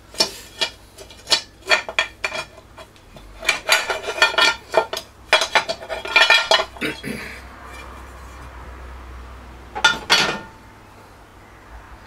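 Alloy rocker cover of a BSA A65 Spitfire twin being worked loose and lifted off the cylinder head: a quick run of sharp metal clinks and knocks, then a pause and two more near the end.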